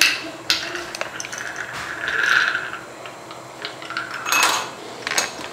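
Steel idiyappam (string hopper) press being assembled and its screw plunger turned: a few sharp metal clicks and clinks, with two longer scraping sounds of metal rubbing on metal.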